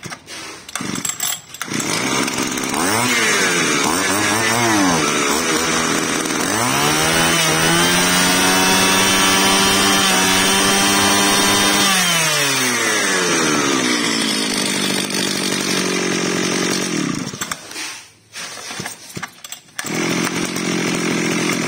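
Mitsubishi TL33 33 cc two-stroke brush cutter engine running: blipped up twice, then held at high revs for about five seconds before falling back to idle. Near the end it briefly drops out, then idles again.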